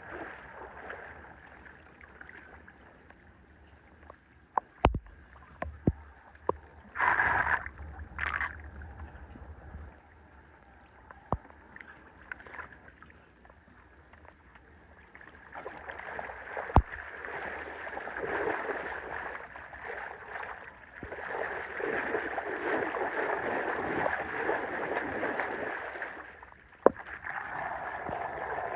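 Water splashing and then rushing steadily, loudest in the second half, with a few sharp knocks and two short splashes in the first half, typical of debris being worked loose from a clogged drain.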